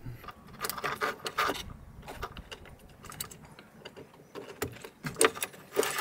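Light clicks and rattles of electrical wires, wire connectors and a small metal thermostat plate being handled and laid out on a plywood board, in a cluster in the first second and a half and another near the end.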